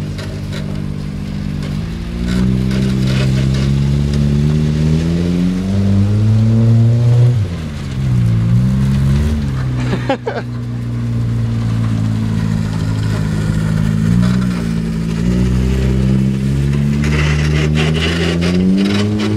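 A battered 1991 Honda Civic's four-cylinder engine revving up and easing off several times as the car is driven, the revs climbing for a few seconds, dropping, then climbing again. There is a single sharp knock about halfway through.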